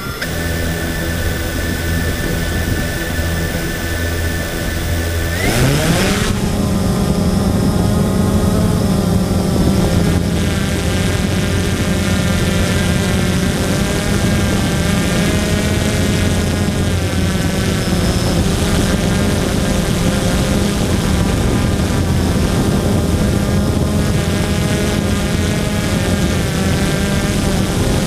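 Blade 350 QX2 quadcopter's propellers and motors running at low speed on the ground, then spinning up in a rising whine about five seconds in as it lifts off. After that comes a steady, louder hum whose pitch wavers slightly in flight, heard close up from the camera mounted on the drone.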